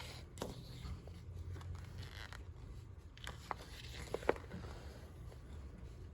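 Handling noise from unboxing: rustling of packaging or paper, then a few small sharp clicks and taps about three to four seconds in.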